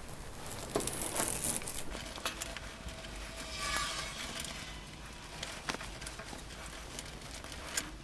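PC power cables being handled and bundled with plastic zip ties: faint rustling and scattered small clicks of cable and tie.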